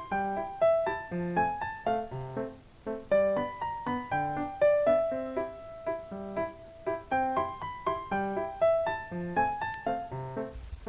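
Background music: a light keyboard tune of quick, evenly paced notes.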